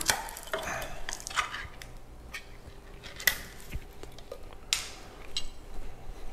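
Light, irregular clicks, scrapes and knocks of a metal spoon against tin cans as condensed cream of chicken soup is scooped out of the cans into a slow cooker, with one sharper knock about three seconds in.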